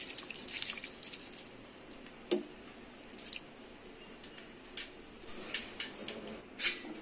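Soaked basmati rice being tipped into a pot of boiling spiced water: splashing and bubbling, with scattered small clinks, a knock about two and a half seconds in and a louder click near the end.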